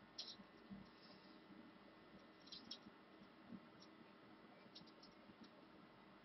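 Near silence: room tone with a few faint, small clicks and scratches of handling.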